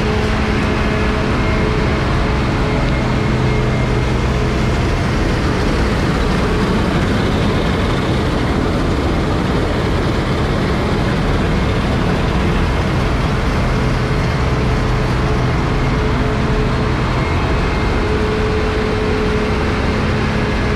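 Claas Lexion 430 combine harvester threshing rapeseed as it drives past close by: a steady, loud drone of engine and threshing machinery, with a low hum running under a wide mechanical rush.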